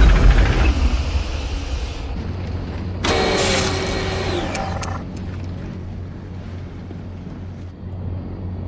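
Sci-fi vehicle machinery sound effects: a heavy low rumble at the start over a steady low hum, then around three seconds in a loud mechanical whirring that winds down in pitch, fitting the vehicle's main power being shut off, leaving only the low hum.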